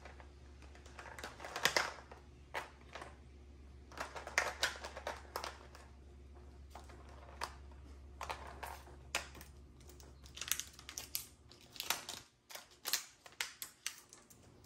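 Small clear plastic drill containers and a plastic storage case being handled: irregular clicks and taps of hard plastic knocking together and against the counter. A low steady hum underneath cuts out about twelve seconds in.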